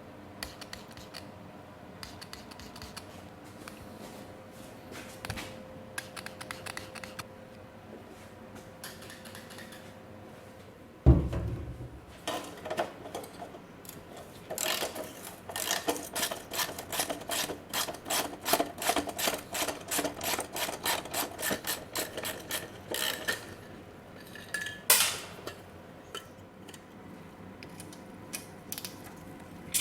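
Hand tools working on metal parts of a 1978 Honda ATC 90 being dismantled: a heavy metallic clank about a third of the way in, then a long run of quick, regular metallic clicks, and another sharp clank near the end.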